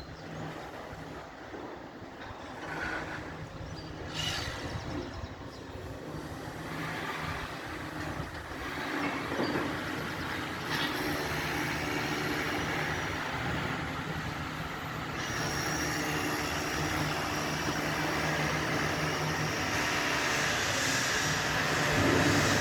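A heavy vehicle or machine engine running steadily, growing gradually louder.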